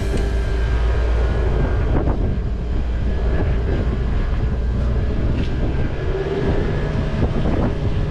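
A steady, low mechanical rumble from a running engine or machine.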